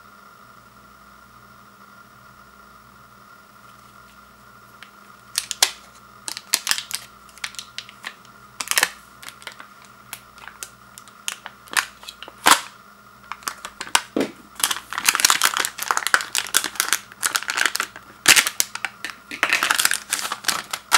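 Plastic shrink wrap on a two-pack of deodorant sticks crackling and snapping as hands work it loose and peel it off. It starts about five seconds in with scattered sharp snaps and grows into denser, continuous crinkling near the end.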